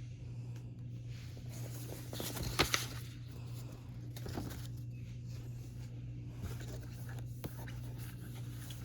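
Handling noises from unboxing a K-pop album: rustling of paper and packaging with a couple of sharp clicks about two and a half seconds in, over a steady low hum.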